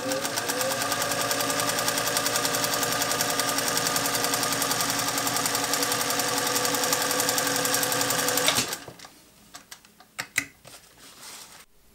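Singer 201 sewing machine running at its top speed through 1000D Cordura nylon. Its motor winds up over the first second, then it runs a steady, fast stream of needle strokes for about eight and a half seconds and stops suddenly. A few light handling clicks follow.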